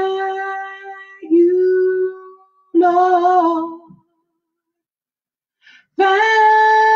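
A woman singing a slow gospel song of thanks unaccompanied, holding long drawn-out notes. After about two seconds of silence she starts a new held note near the end.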